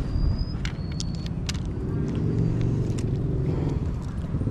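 A motor engine running steadily, its hum firming up about two seconds in, with a few sharp clicks in the first second and a half.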